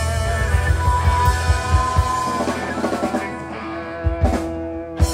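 Live rock band playing a song's closing bars: an electric guitar holds a long, wavering note over keyboard and bass, the drum kit hits on the beat, and two heavy drum-and-cymbal hits near the end are left to ring out.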